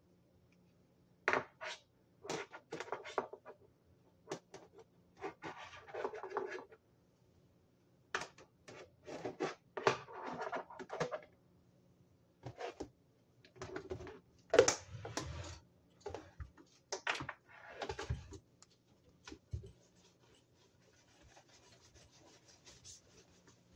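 Hands handling metal toaster parts and cleaning things on a kitchen counter: irregular clacks, knocks and short scraping and rubbing bursts. Near the end a soft, steady rubbing as a hand scrubs the foamy side of the toaster.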